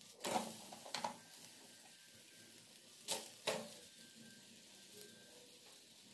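Aloo paratha sizzling faintly on a hot iron tawa, with a few short knocks and scrapes as it is turned over on the griddle.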